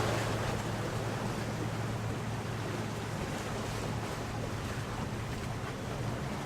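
Motorboat engine running with a steady low drone, mixed with wind and water noise.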